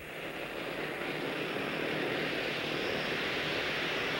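Airliner's engines running as it moves along the ground, a steady engine noise that swells over about the first second and then holds.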